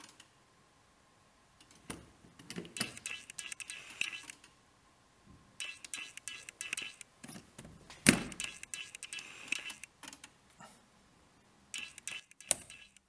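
Clicking and rattling from test probes and their coiled test leads being handled on the terminals of an electrical panel during an insulation resistance test. It comes in several bursts, with one sharp knock about eight seconds in.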